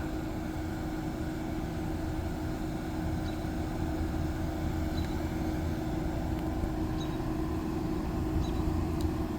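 Idling car engine with its air conditioning running: a steady low hum with a constant drone and a few faint ticks.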